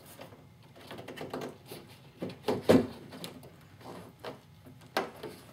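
Irregular clicks and soft knocks as the inner window weather stripping is pressed by hand onto the top edge of a Ford Mustang door. The sharpest knocks come a little over two seconds in and again near the end.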